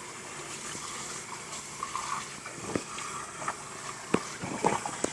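Kitchen tap running onto a raw turkey in the sink, the water splashing over and into its body cavity as hands rinse it out. A few short sharp sounds stand out in the second half.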